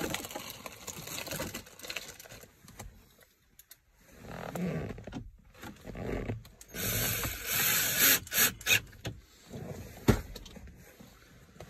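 Fabric rustling and scraping right against the microphone as a jacket sleeve brushes past, with a few sharp clicks and one louder knock near the end as parts are handled at the dashboard.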